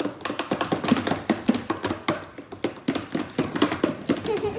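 Thick glue-and-baking-soda slime mixture being worked in a bowl, making quick, irregular sticky clicks and taps, several a second.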